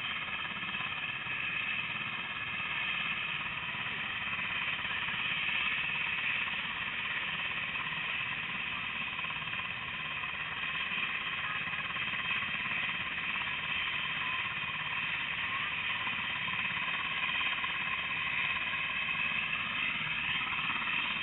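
UH-60 Black Hawk helicopter running on the ground at idle, a steady turbine whine and rush of its twin engines and rotor heard from a distance.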